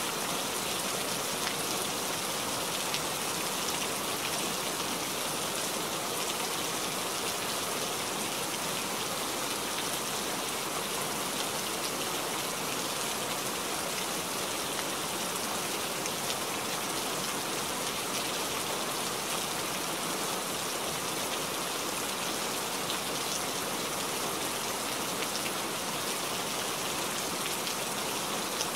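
Steady rain falling: an even hiss of drops with small scattered ticks, unchanging throughout.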